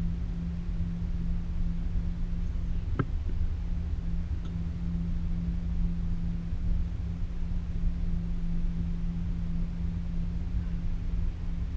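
Cable car cabin running along its haul cable: a steady mechanical hum over a low rumble, with one sharp click about three seconds in.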